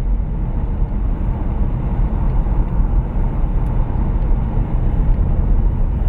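Following car driving at speed, its engine and tyre noise heard as a steady low rumble from inside the cabin.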